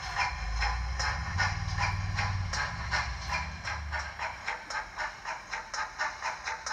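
Dapol OO gauge GWR Mogul model's Zimo MX659 sound decoder playing a Manor class steam locomotive sound file through its small speakers. Evenly spaced exhaust chuffs quicken to about four a second as it runs, over a low rumble that fades about four seconds in.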